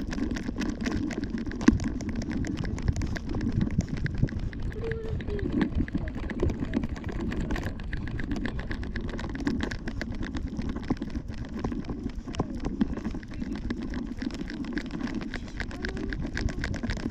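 Rubbing, rustling and many small clicks and knocks from a camera strapped to a small dog's harness, jostled with each step as the dog walks.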